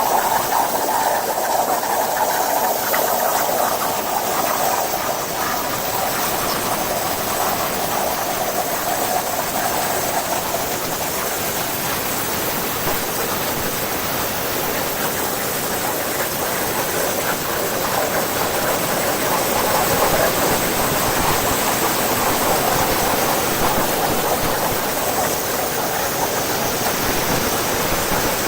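Hypertherm Powermax85 plasma torch cutting 3/4-inch mild steel plate on a CNC table: the arc and air jet make a loud, steady hiss.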